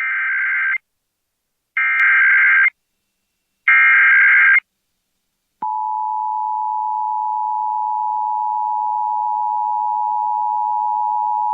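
Emergency Alert System Required Weekly Test: three short bursts of the SAME header's data tones, about a second apart, then the steady two-tone EAS attention signal starting about five and a half seconds in. They mark the start of an alert, ahead of the spoken test message.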